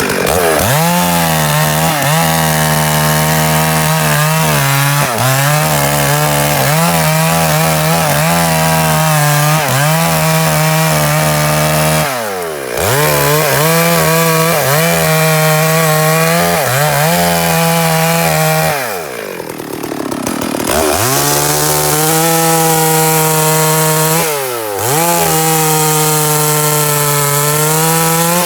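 Two-stroke chainsaw running near full throttle while cutting wood, its note sagging briefly again and again under load. The engine drops toward idle three times, longest about two-thirds of the way through, and revs back up each time.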